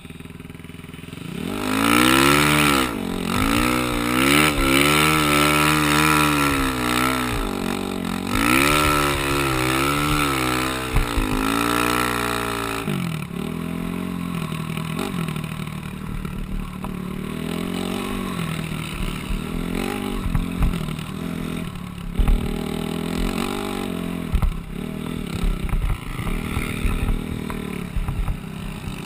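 Off-road vehicle engine heard close up while riding over sand, revving hard and rising and falling in pitch through repeated throttle and gear changes. About halfway through it drops to a lower, uneven running sound with occasional knocks and clatter from the machine.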